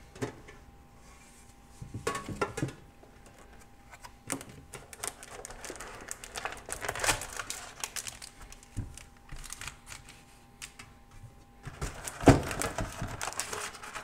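Clicks and taps from a metal trading-card tin and its tray being handled, with foil card packs crinkling as they are lifted out. The loudest handling comes about two seconds in and near the end.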